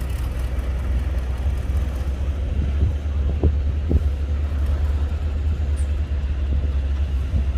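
Heavy diesel earthmoving machinery, a bulldozer at work, running with a steady deep engine rumble, with a couple of short sharper sounds about halfway through.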